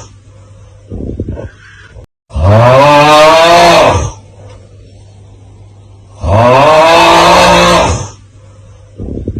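The TikTok 'Aauuggh' snoring meme sound effect, looped: a loud, drawn-out vocal 'aauuggh' snore, about two seconds long, heard twice, each followed about a second later by a short, quieter sound.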